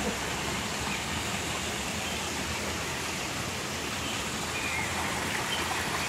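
Water running steadily over a small artificial rock waterfall and splashing into a shallow pool: an even, unbroken rushing.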